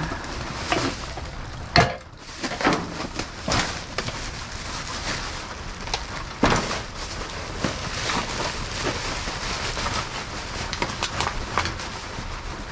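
Empty aluminum cans clattering and knocking together amid rustling trash as they are picked out one by one from a bag of garbage, with a couple of sharper knocks. A steady rain hiss lies underneath.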